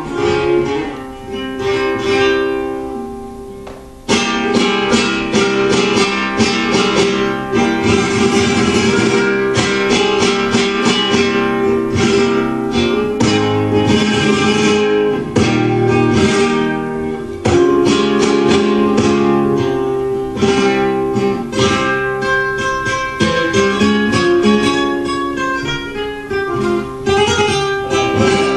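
Flamenco guitar playing a tientos. A chord rings out and fades, then about four seconds in the guitar breaks into loud, fast strummed passages that carry on to the end.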